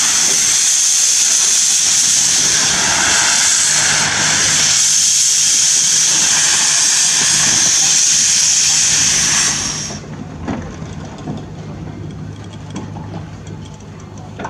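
Peckett 0-6-0 saddle-tank steam locomotive moving off with its cylinder drain cocks open, steam hissing loudly. About ten seconds in the hiss cuts off suddenly as the cocks are closed, leaving the quieter low running sounds of the engine and wagons.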